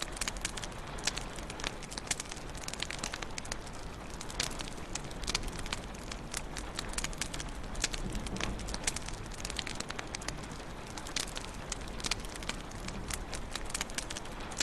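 Wood fire crackling in a fireplace: a steady low rumble of flames with frequent irregular sharp pops and snaps.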